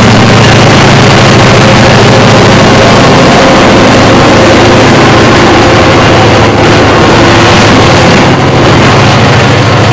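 CSX freight train passing: a diesel locomotive engine's steady low drone under loud, continuous rushing noise.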